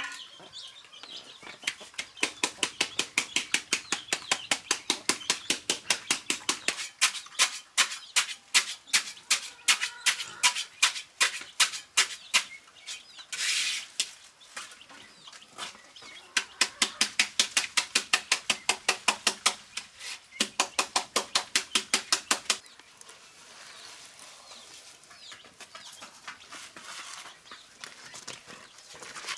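Rapid, regular knocking strikes, about three to four a second, in two long runs with a pause between them.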